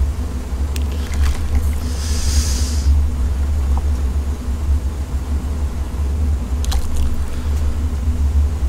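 Steady low background rumble with a faint hum. A metal ladle clicks lightly against the noodle pot about a second in and again near the end, and there is a short hiss at about two seconds.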